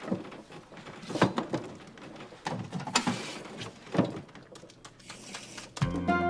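Scattered knocks and clatter as a man wrestles with a kitchen sink, with a few short hissy smears between them. A brief music jingle comes in near the end.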